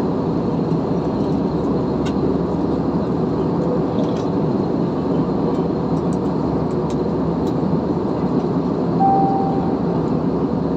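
Steady roar of a jet airliner's engines and airflow heard inside the passenger cabin in flight. A short steady tone sounds briefly about nine seconds in.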